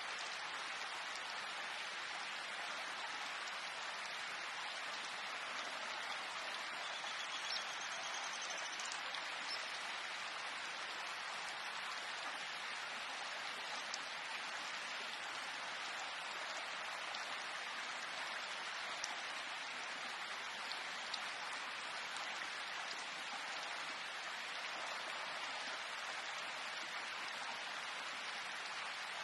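Steady rain falling, an even hiss with a few faintly distinct drops now and then.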